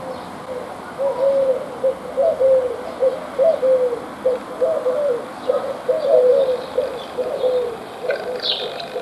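Eurasian collared dove cooing: a long run of short, low coos repeated over several seconds, starting about a second in.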